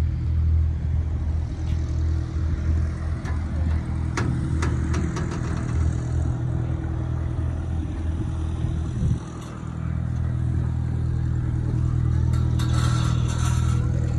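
An engine running steadily with a deep hum, a few sharp clicks about four to five seconds in, and a brief drop in level just after nine seconds.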